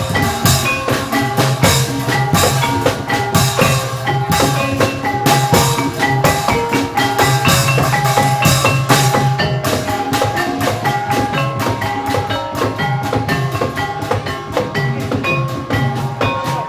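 Live incling (Javanese jaranan) accompaniment: drums and pitched percussion playing a dense, fast repeating pattern of short ringing notes.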